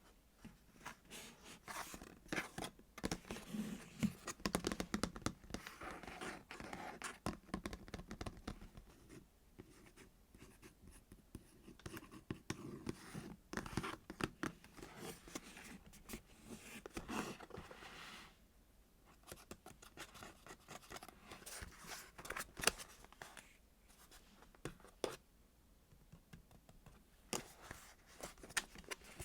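Squishy toys handled close to the microphone: fingers squeezing, scratching and tapping them, giving irregular crackly scratches and small clicks, with a quieter lull partway through.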